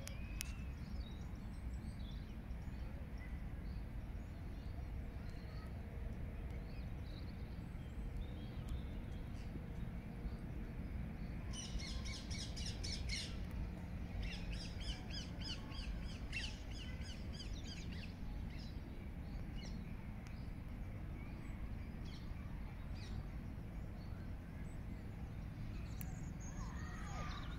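Small songbirds singing high, rapid chirping phrases in two dense bursts around the middle, with scattered fainter calls, over a steady low outdoor rumble.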